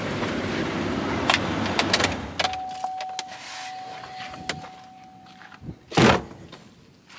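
Overheating Chevy 6.0 V8 plow truck engine running, then shut off about two and a half seconds in. A steady high tone follows for about three seconds, and then there is one loud slam, like a truck door closing, about six seconds in.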